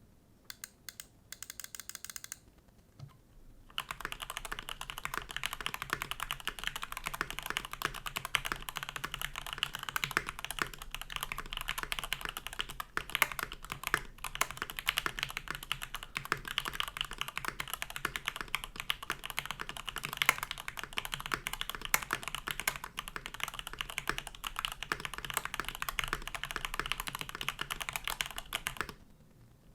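Typing on a mechanical keyboard fitted with stock Gateron Box Ink Black V2 linear switches. A few scattered key presses come first, then fast continuous typing with keystrokes close together from about four seconds in, stopping shortly before the end.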